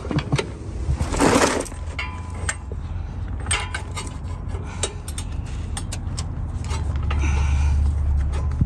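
Steel pry bar clinking and scraping against the crankshaft pulley and surrounding metal under the truck while trying to lever the engine over by hand, with many small sharp clinks and a brief scrape about a second in. A steady low rumble runs underneath and swells near the end.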